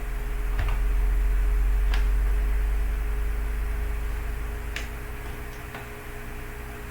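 Four light, separate clicks over a steady low hum.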